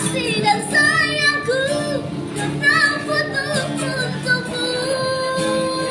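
A woman singing with instrumental accompaniment, ending on a long held note.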